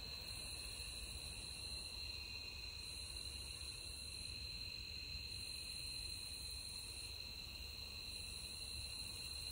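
Night insect chorus: crickets trilling in a faint, steady high tone, with a higher insect buzz that pulses on and off about every two seconds.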